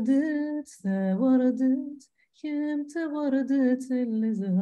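A woman singing unaccompanied, a short song of held notes in phrases with brief pauses between them.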